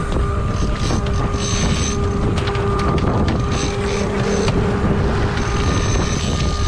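A boat's engine running steadily with a constant hum, under wind noise on the microphone and the rush of water along the hull.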